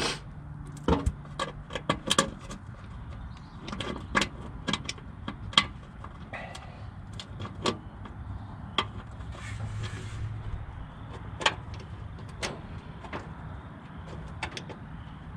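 Scattered sharp metallic clicks and taps, irregularly spaced, as oil pan bolts and hand tools are handled and the bolts are started into the block of a Mopar 400 big-block.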